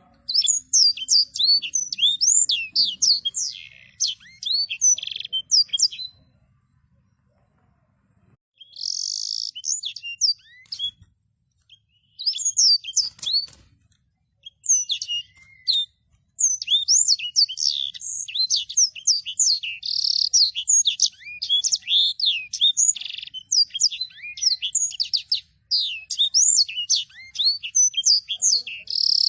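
Songbird singing a long, rolling chatter of rapid chirping notes, each sweeping quickly downward in pitch. It breaks off twice for a second or two before rolling on.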